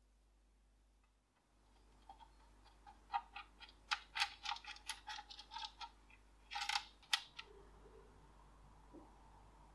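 Small steel pistol parts clicking and tapping against each other and their tray as they are handled, about fifteen light, irregular clicks over some five seconds, with a longer rattle and a last sharp click near the end.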